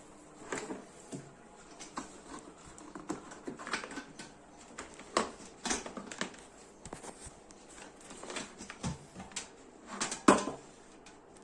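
Irregular light knocks and clicks, with one louder knock about ten seconds in.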